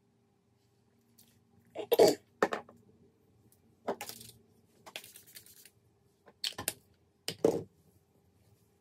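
Handling noise: about five short clicks and knocks spread over several seconds, the loudest about two seconds in and near the end, with a brief rustle in the middle.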